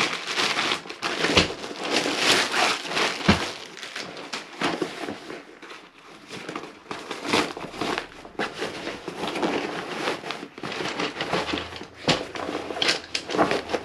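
Plastic wrap crinkling and crackling as it is torn open and pulled off a packed cot stuff sack, then fabric rustling as the sack is handled and opened, with a few sharp knocks; the last, near the end, comes as the folded cot frame starts to slide out.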